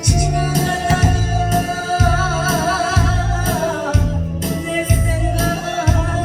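A voice singing a song in disco style over a backing track with electronic organ and a steady heavy beat about twice a second; the sung line wavers with vibrato in the middle.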